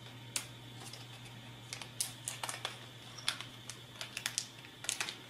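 Small clear plastic parts bag being handled and opened: a run of light, irregular clicks and crinkles, with small plastic and metal parts clicking inside it.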